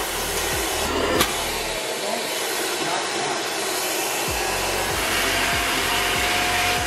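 Kaisa Villa stick vacuum cleaner running steadily, its motor and rushing air continuous as it sucks at a plastic bag and a sheet of paper held to the nozzle. A single click about a second in, and a faint whistle near the end.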